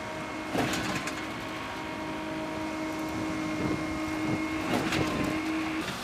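Concrete pump truck running: a steady mechanical hum with a few sharp knocks and clanks scattered through it. The hum stops shortly before the end.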